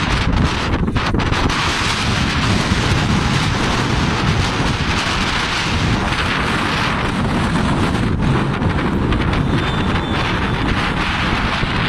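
Wind blowing hard across the microphone: a steady low rumble with hiss over it, with no break.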